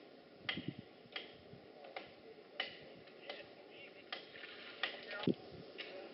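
A series of sharp ticks or taps, about one every two-thirds of a second, fairly regular, the strongest one near the end.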